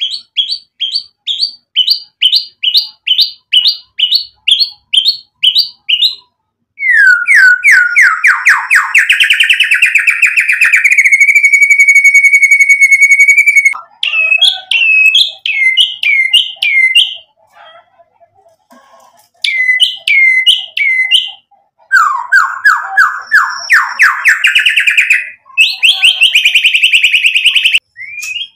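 White-rumped shama (murai batu) in loud, full song, running through varied phrases: a run of sharp repeated whistles about two or three a second, then a fast rattling trill into a long held whistle. More varied notes follow, with a brief lull just past the middle, and a fast trill and buzzy run near the end.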